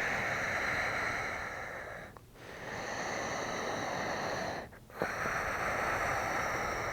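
Deep, audible breaths: three long breaths of about two seconds each, separated by short pauses.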